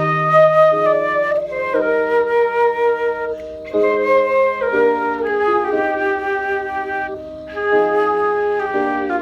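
Instrumental music: a flute-toned melody over held chords, played in phrases with two short breaks.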